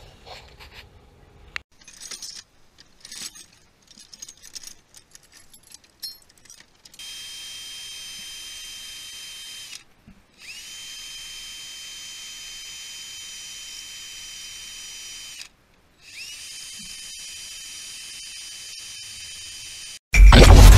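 Cordless drill running in three long steady runs, each spinning up to a steady high whine, after some scattered clicking and handling noise. Loud music cuts in just before the end.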